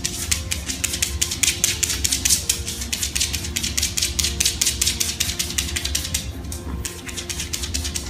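Fingernails scratching rapidly through a dog's fur, a quick run of scratchy strokes several times a second with a short lull near the end.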